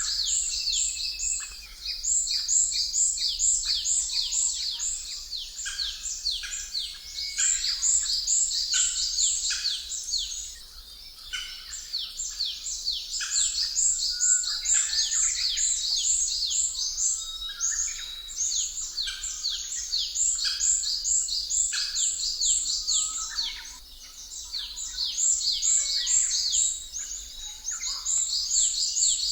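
A dense chorus of many small birds chirping without pause, quick high downward-sweeping chirps overlapping one another and swelling and fading in loudness.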